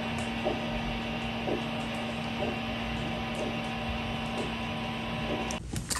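Handheld Doppler probe on the foot picking up the arterial pulse, heard as a whoosh about once a second over a steady hum, the blood-flow check of an ankle-brachial index test. It cuts off suddenly near the end, and a few clicks follow.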